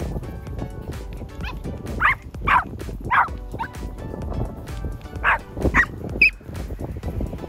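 Young Chihuahua yapping in short, high, sharp barks: a quick run of three about two seconds in, then two more a few seconds later. Background music plays underneath.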